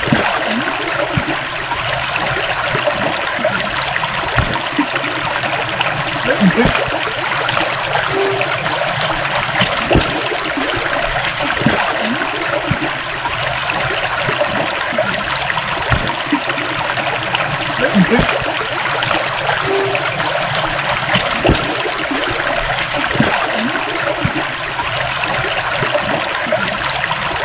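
Running water of a small stream trickling and babbling steadily, with small splashes flickering through it.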